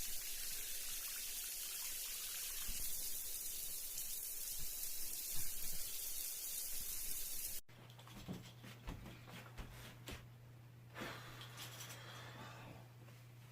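Steady running water, like a tap running into a sink or drain, which cuts off abruptly about eight seconds in. It gives way to a quieter low steady hum with scattered light knocks and clicks.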